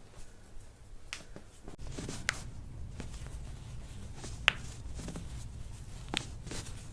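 Joints cracking under chiropractic manipulation: several short, sharp pops about one to two seconds apart, the loudest a little past the middle.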